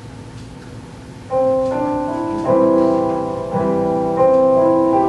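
A keyboard starts the introduction to a congregational song about a second in, playing slow held chords that change every second or so.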